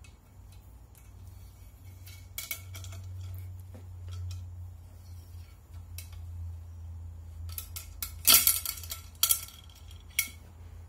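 Steel cleaning rod clicking and clinking against the Franchi Falconet shotgun's barrel as a rag-covered bore mop is run through the bore. A pair of clicks comes about two and a half seconds in, a louder cluster of clinks about eight seconds in, then a few single clicks.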